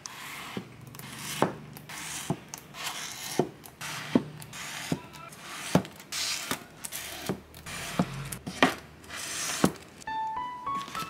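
Paperback manga volumes being set down and slid into place on a white IKEA Billy bookcase shelf: about a dozen sharp taps and knocks, roughly one a second, with brushing and scraping as the covers rub against each other and the shelf. Soft lo-fi music plays underneath, and a melody comes in near the end.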